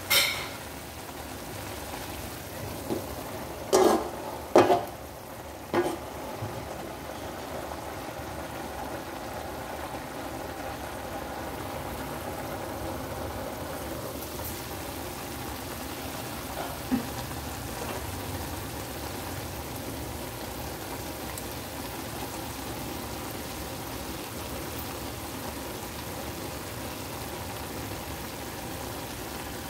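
String beans and ground pork sizzling steadily in a wok, with a few sharp knocks in the first six seconds.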